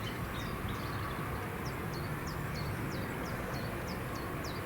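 A small bird calling in a rapid series of short, high chirps, about four a second, over a steady low rumble.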